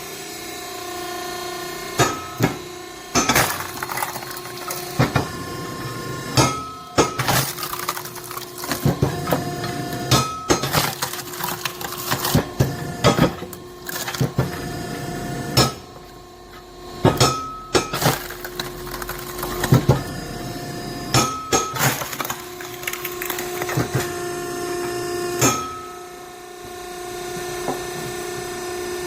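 Hydraulic firewood splitter running steadily with its pump humming, while green oak rounds are forced through a cross-shaped splitting blade. The wood gives many sharp cracks and snaps, one every second or two, as the pieces split apart.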